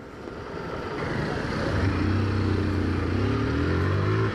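Single-cylinder engine of a Honda CG 150 Titan motorcycle pulling away from a stop, heard from the rider's helmet. Its note builds over the first two seconds, then runs steadily and climbs slightly in pitch as the bike gathers speed.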